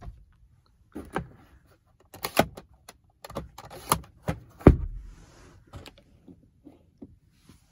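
Plastic clicks and knocks of a car's interior trim being handled: the sun visor, its vanity mirror cover and the overhead grab handle. The clicks come one by one with short pauses between them, and the sharpest knock comes a little past halfway.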